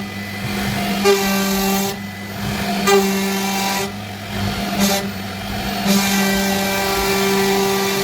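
CNC router spindle running steadily while cutting wood. A constant whine is overlaid with a harsher cutting hiss that swells and eases about every second as the bit moves through the wood.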